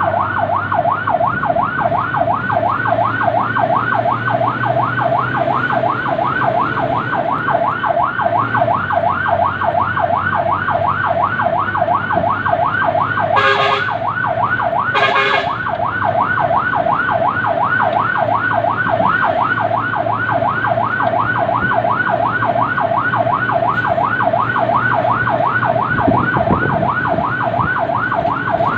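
Fire truck's electronic siren on a fast yelp, rising sweeps about three a second, over the steady run of the truck's engine. Two short horn blasts cut in about halfway through.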